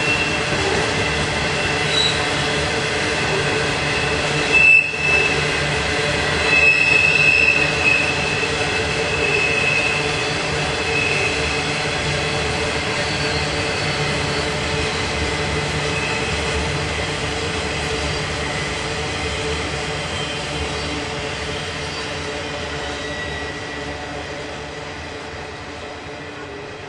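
Intermodal freight cars rolling through a sharp curve: a steady rumble of wheels with high-pitched wheel squeal from the flanges grinding on the curving rail. The squeal is loudest around five and seven seconds in, and the sound fades near the end as the last cars pass.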